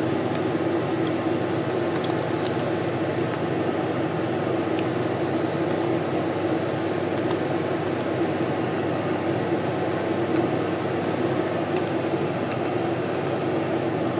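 A fan's steady whirring hum, unchanging, with a few faint ticks near the end.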